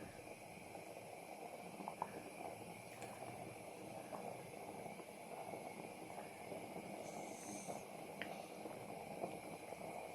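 Pot of ghormeh sabzi stew simmering, with faint bubbling and small scattered pops.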